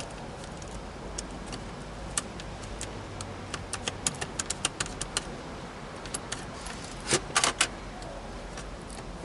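Light metal clicks and taps of a pick working the retaining pin on a deadbolt cylinder to free its broken tailpiece. The clicks are scattered and irregular, with a louder cluster about seven seconds in.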